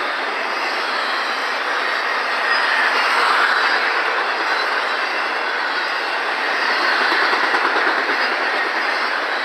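Cars of an intermodal freight train rolling past: a steady noise of steel wheels on rail with clickety-clack, swelling a little a few times.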